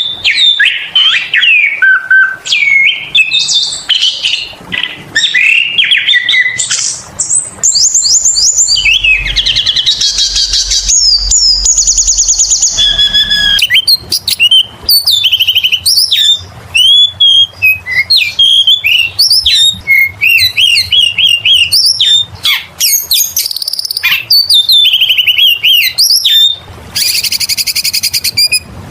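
Oriental magpie-robin (kacer) singing nonstop: a loud, varied song of quick whistled phrases and slurred notes. Rapid buzzy rattles come in about a third of the way through and again near the end.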